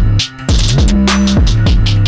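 Background electronic music with a fast, busy beat and low bass notes that slide downward, and a brief drop-out about a quarter second in.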